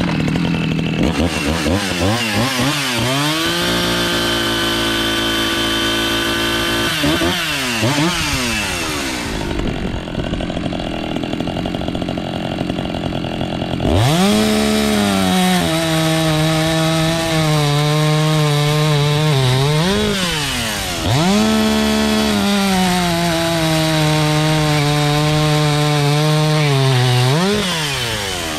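Ported Echo CS-590 two-stroke chainsaw with an 8-pin rim sprocket revving to full throttle and cutting through large wooden blocks, about three cuts in a row. In each cut the engine pitch drops to a lower, steady note under load and rises again as it comes free. The saw holds its revs with the larger sprocket rather than bogging.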